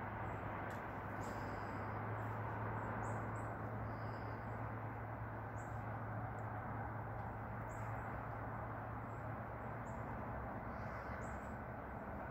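Outdoor background of a steady hiss with a low hum under it, and scattered short, faint high chirps of small birds throughout.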